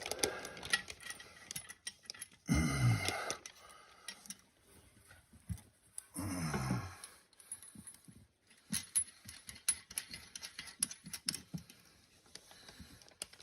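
Scattered small metallic clicks and taps as the nuts and metal washers on a toilet's tank-to-bowl bolts are turned down by hand. Twice, about two and a half and six seconds in, a short voiced grunt falls in pitch.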